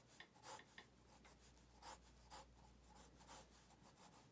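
Graphite pencil sketching on paper: faint, short scratchy strokes, several in a row.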